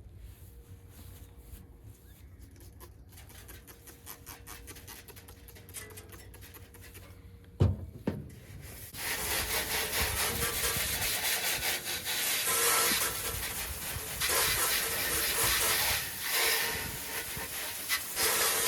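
Water spraying from a hose onto heat pump parts: a loud, steady hiss that starts about nine seconds in. It follows a quieter stretch with a faint steady tone and a single knock.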